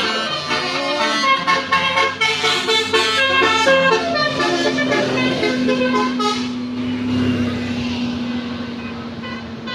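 Bus 'telolet basuri' musical air horn playing a quick tune of short notes over a steady low drone. The tune stops about six seconds in, leaving a rushing noise with the low drone still sounding.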